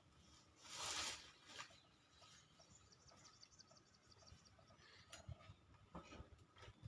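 Near silence: faint outdoor ambience with a brief rush of noise about a second in and faint high chirping.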